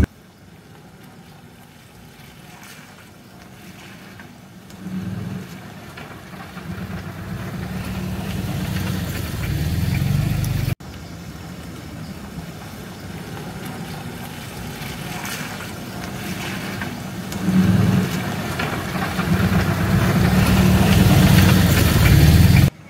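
Suzuki Vitara (Escudo/Sidekick) SUV approaching on a wet road, its engine hum and tyre hiss growing steadily louder as it nears. The sound cuts off abruptly about eleven seconds in, then builds again as the SUV comes close and passes.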